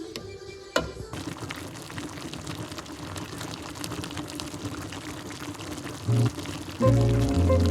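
Water pouring or running steadily, starting with a click about a second in. Music with a heavy bass beat comes in near the end.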